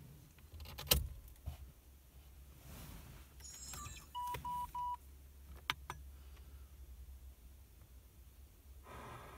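Geely car radio head unit giving three short beeps as its buttons are pressed, amid sharp clicks of handling and button presses. A hiss comes up near the end as the radio starts playing.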